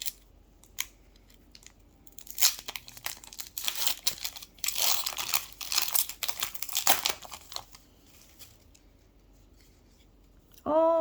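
Foil trading-card booster pack being torn open and its wrapper crinkled, in rustling bursts that are loudest about five to seven seconds in.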